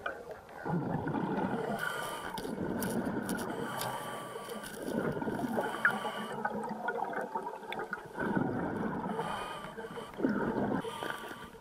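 Underwater gurgling rush of a diver's exhaled air bubbles, swelling and fading every two to three seconds.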